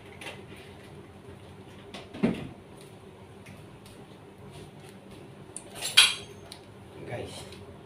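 A few clinks and knocks of metal kitchenware being handled, the sharpest and loudest a ringing clink about six seconds in, over a faint steady hum.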